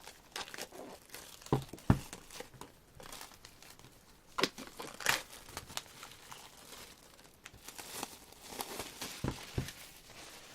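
Album packaging being handled and opened: irregular crinkling and rustling of paper and plastic, with a few soft knocks of the album case being set down or bumped.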